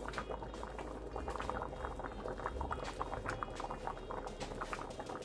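A pot of thick white bean and tomato stew bubbling on the stove, with many small irregular pops and plops of bubbles breaking at the surface.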